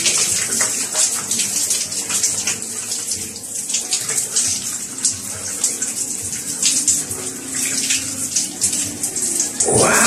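Water spraying from an overhead shower head and splashing, a steady hiss broken by irregular splatters, with a louder burst of sound just before the end.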